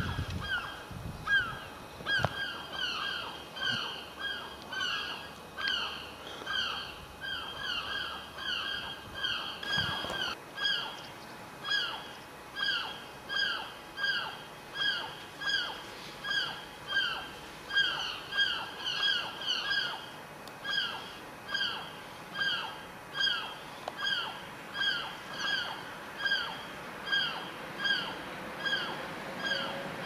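Gulls calling over and over in short, falling calls, repeated more than once a second in a steady rhythm.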